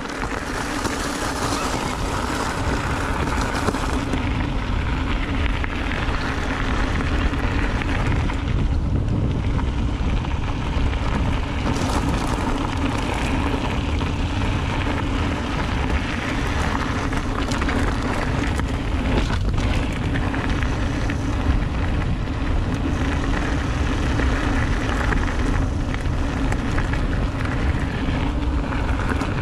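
Mountain bike riding on a dirt and gravel trail: a steady low rumble of tyres rolling over the ground, mixed with wind rushing over the camera microphone.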